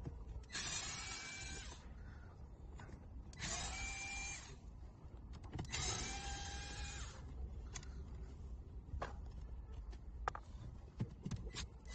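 Electric screwdriver whirring in three short runs of about a second each, backing out the screws that hold the dashboard trim panel, with a few faint clicks afterwards.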